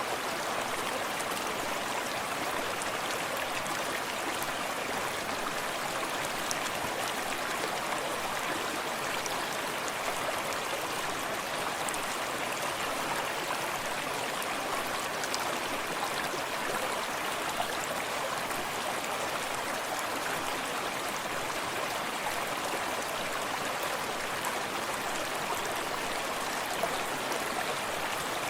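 Small forest stream running steadily, its water lapping and trickling over stones in an even rushing wash.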